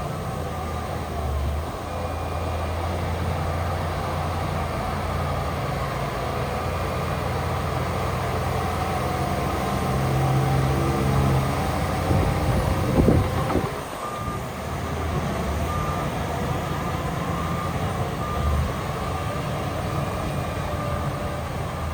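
Heavy diesel construction machinery running steadily, with a reversing alarm beeping at a regular pace through the second half. A short burst of loud clanks comes about thirteen seconds in.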